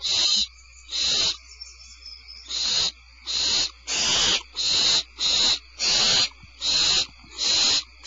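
Barn owl owlets giving a run of harsh hissing calls, about ten in all, each under half a second, coming faster from a couple of seconds in. These rasping hisses are the 'snoring' food-begging call of barn owl nestlings.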